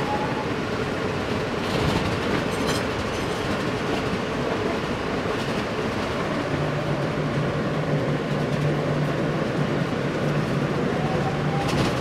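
New York City subway train running, heard from inside the car: the steady rumble of steel wheels on rail, with a rising whine as it pulls away from the station. A few rail-joint clicks come about two seconds in, and a steady low hum joins about halfway through.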